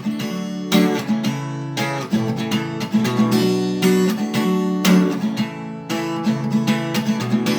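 Acoustic guitar strummed in a steady rhythm, chords ringing between strokes: an instrumental break between sung verses.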